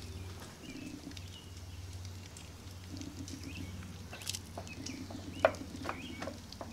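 Scattered light clicks and taps of tongs and hands working food on a wooden cutting board, one sharper click about five and a half seconds in, over a low steady hum and faint high chirps.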